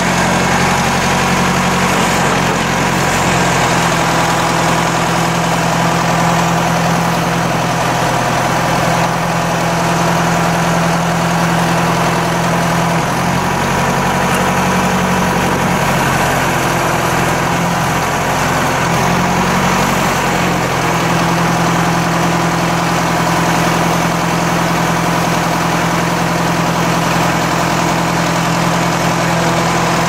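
John Deere 500C backhoe loader's four-cylinder diesel engine running steadily while the backhoe boom and bucket are worked, its tone shifting briefly a couple of times.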